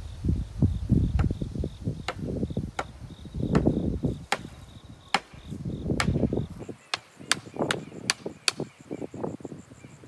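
Wooden mallet striking the top of a wooden pole, driving it in for a rice-drying rack: a run of sharp wooden knocks that comes faster, about two or three a second, in the second half, over low thuds and scuffing of poles being handled. Insects buzz faintly and steadily behind.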